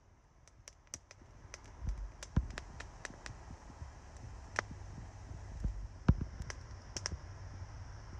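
Wood fire of sticks crackling with scattered sharp pops, a few much louder than the rest, over a low rumble that comes up about two seconds in.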